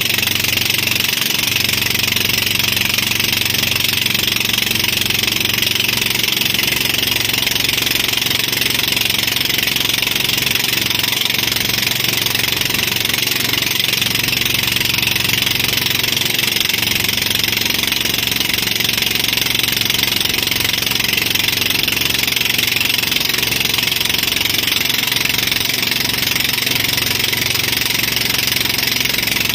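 Motorboat engine running steadily at speed while towing, under a constant hiss of wind and water.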